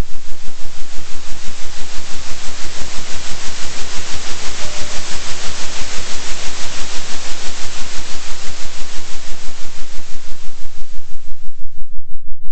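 Synthesized 3 Hz oscillating sound: a steady deep low tone under a hiss of noise, the whole loudness pulsing evenly about three times a second. The hiss swells through the middle and fades away near the end.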